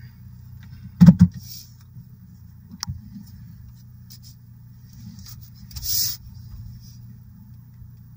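Car heard from inside the cabin while it is slowly manoeuvred into a parking spot: a steady low engine hum, with a loud thump about a second in, a sharp click near three seconds and a short hiss about six seconds in.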